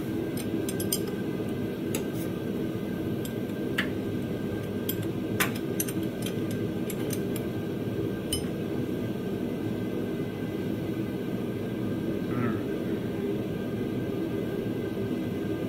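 Light metallic clinks and ticks of a wrench working the cross-pin bolt in an open Ford 8.8 rear differential, scattered mostly through the first half, over a steady background hum.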